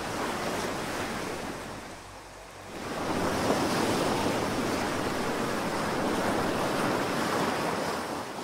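Ocean waves washing on a shore: a lull about two seconds in, then a wave swells in around three seconds and holds before fading near the end.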